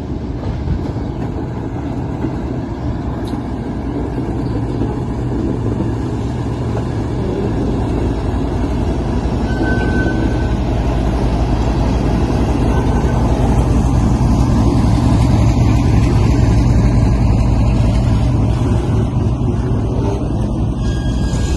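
Diesel-electric freight locomotive's engine running with a steady low drone, growing louder as it draws near and loudest about three quarters of the way through, then easing a little.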